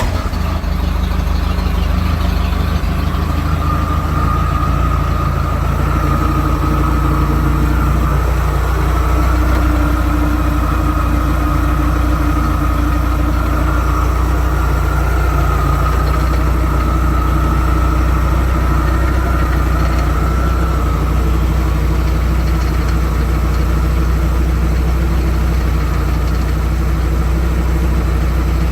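Inboard boat engine idling steadily just after starting, with a thin high whine over it until about twenty seconds in.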